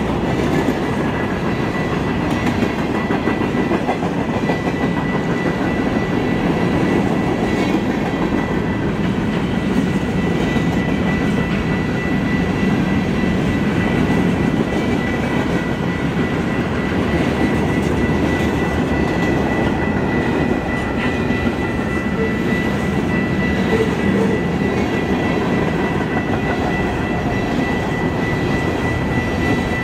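Train cars rolling past on the rails, a steady loud rumble of wheels on track. A thin, steady high whine runs through it.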